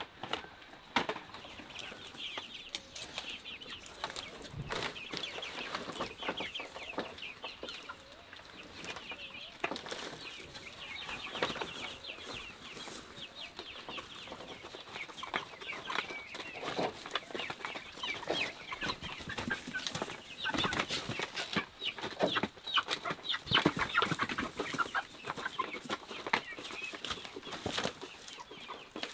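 A flock of chickens calling continuously, a dense stream of short high-pitched peeps and clucks, with occasional knocks.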